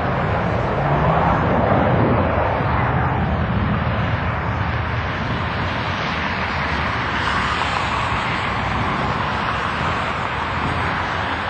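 Engines of a McDonnell Douglas MD-80-family twinjet running at takeoff power, a steady rush of jet noise over a low rumble as it rolls down the runway and lifts off. The noise is loudest about two seconds in.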